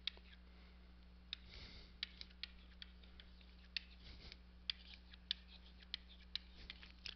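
Faint, irregular clicks and taps of a stylus writing on a tablet's surface, over a steady low hum.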